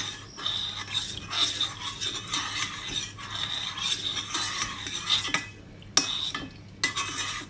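Metal spoon stirring and scraping around a small stainless steel saucepan in repeated strokes, with a faint metallic ring. This is a lemon juice, sugar and gelatin mixture being stirred so that the gelatin sheets dissolve. The stirring eases off about five seconds in, and a few sharp clinks of spoon on pan follow.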